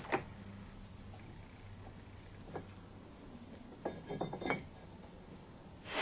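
Quiet handling on a workbench: a low steady hum, then a few light clicks and taps about four seconds in as scissors and the Kaowool ceramic-fibre lining are handled.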